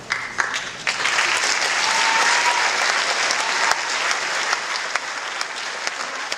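Audience applause: a few claps at first, then a full round about a second in, easing off a little in the second half.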